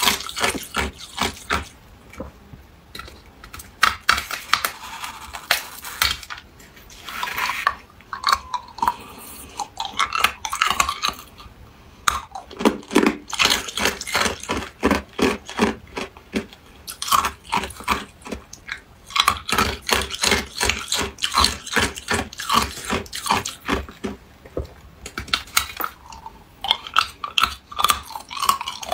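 Hard clear ice cubes being bitten and crunched between the teeth, in bursts of rapid sharp cracks separated by brief pauses.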